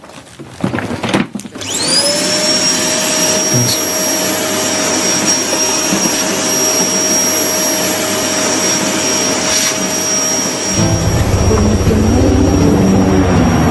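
A few knocks, then an electric appliance motor is switched on about a second and a half in, whining up to speed within half a second and running steadily with a high whistle over a loud rushing of air. Near the end the lower part of the whine stops and a deeper rumble takes over.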